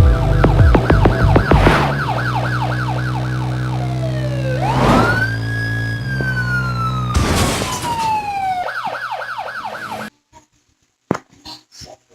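Emergency vehicle siren on a fast yelp, about four sweeps a second, switching to one slow wail that rises and then falls over a few seconds, then back to yelp, over a steady low hum. The sound cuts out about ten seconds in, leaving near silence with a few faint clicks.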